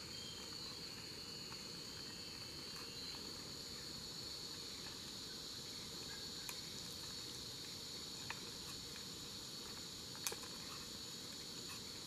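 Forest insects droning in a steady, even high-pitched chorus, with a few faint clicks in the second half.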